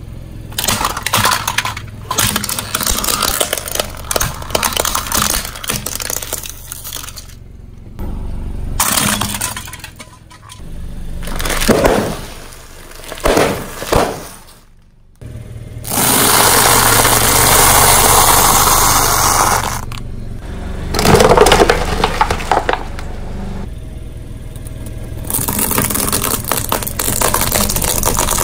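A car tyre rolling over and crushing plastic toys and bags of crunchy snacks: plastic cracking and snapping, and snack bags crackling as their contents crunch. This comes as a series of separate bouts, with one long loud crunching stretch a little past the middle.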